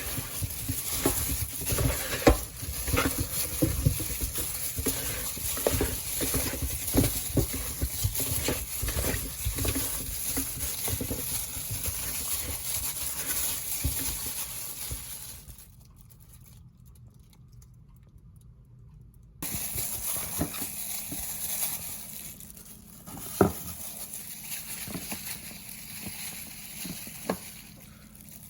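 Wet pattering and clicking of food being handled and stirred, with a few seconds of near quiet about halfway through.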